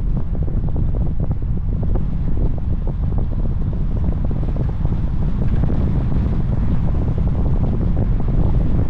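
Wind buffeting the microphone of a moving car, a steady loud low rumble.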